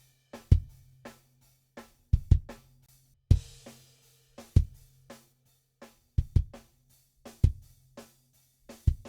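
Playback of a recorded drum groove heard through the kick-drum microphones: kick drum hits, several of them doubled, each followed by a low ringing boom, with quieter snare and cymbal bleed. The kick is heard without the Pultec EQP-1A equaliser plugin.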